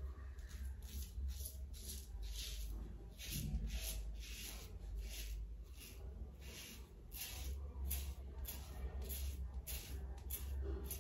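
Merkur 34C double-edge safety razor with a Wilkinson Sword blade scraping stubble through shaving lather on the neck, in a run of short strokes about one to two a second.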